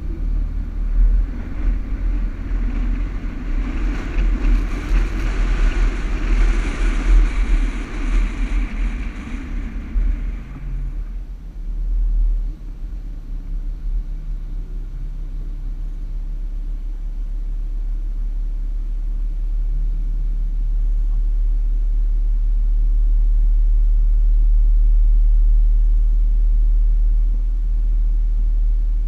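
A 4x4 driving across soft desert sand: a continuous low rumble of engine and tyres. For the first ten seconds or so a rougher, uneven hiss sits over it. After that it settles into a steady low rumble that slowly grows louder.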